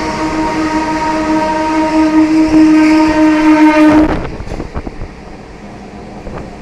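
Indian Railways EMU local train sounding its air horn in one long multi-tone blast that grows louder and cuts off about four seconds in. The clatter of its wheels over the rail joints follows, quieter.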